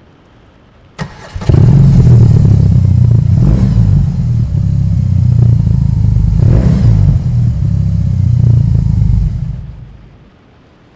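BMW R 18's 1802 cc air-cooled two-cylinder boxer engine running under way, a deep low exhaust note that comes in suddenly about a second and a half in. It swells in revs twice and fades away near the end.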